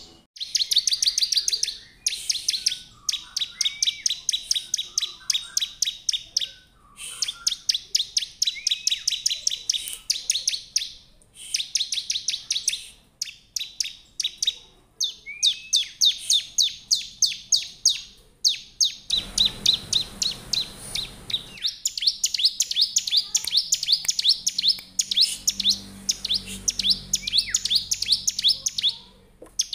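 Bar-winged prinia (ciblek) singing: fast trains of sharp, high chirps, repeated in phrases of a second or two with brief pauses between. Near the middle a rushing hiss lasts a couple of seconds under the song.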